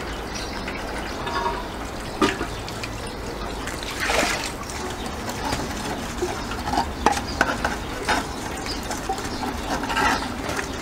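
Water running and trickling from an outdoor tap, with scattered scrapes and knocks of hands scrubbing a soapy metal piece.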